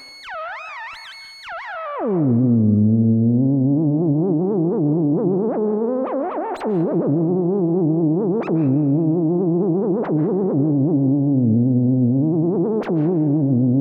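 Cheap AliExpress electronic theremin's built-in synth voice with light reverb: a high warbling pitch glides steeply down about two seconds in, then holds a low, many-overtoned tone that wobbles up and down in pitch, with a few sharp clicks along the way.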